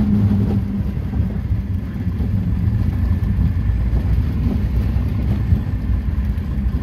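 Cessna 150's Continental O-200 four-cylinder engine running at low power, heard from inside the cabin as the plane rolls over a grass strip after touchdown, with a steady low rumble and some wind noise.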